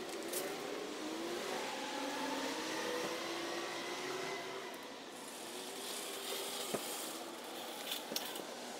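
A car engine accelerating, its pitch rising slowly for about five seconds and then fading, over steady traffic hiss. A few sharp clicks come near the end.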